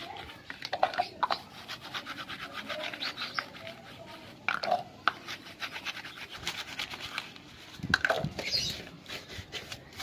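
A hand brush scrubbing small soapy plastic bird feeder cups: a rapid, scratchy rasp of strokes. Louder plastic handling sounds come about a second in, around the middle and near the end.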